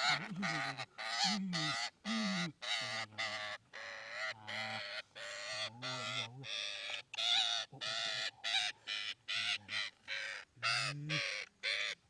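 A trapped green parakeet squawking loudly and repeatedly, about two calls a second, while a hand reaches in and grabs it.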